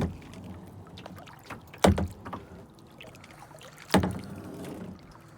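Kayak paddle strokes: three sharp splashes about two seconds apart, with faint water sound between them.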